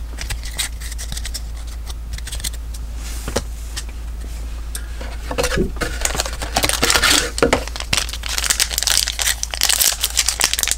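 A trading card pack wrapper crinkling and cards being handled: irregular crackles that grow busier and louder over the last few seconds.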